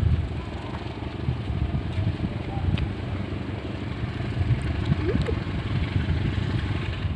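Low, steady rumble of a diesel locomotive heard from a distance as it approaches, hauling a container freight train.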